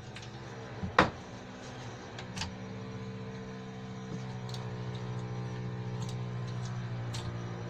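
Hand tools clinking on the old gearbox mount's bolt while it is held in a vise: one sharp metallic knock about a second in, a smaller one shortly after, and a few light ticks. These sit over a steady low mechanical hum.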